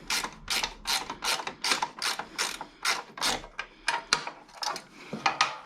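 Hand socket ratchet clicking as it is worked back and forth on a nut, about four quick clicks a second.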